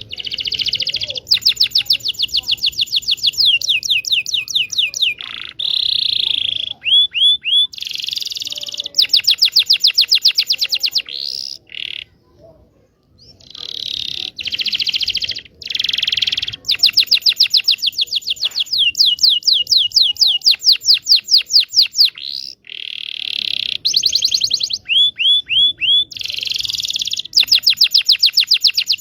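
Local Indonesian canary singing a long song of fast rolling trills and rapidly repeated high chirps, phrase after phrase, with one brief break about twelve seconds in.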